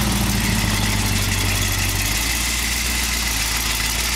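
Jeep CJ's Chevrolet Vortec 350 small-block V8 idling steadily.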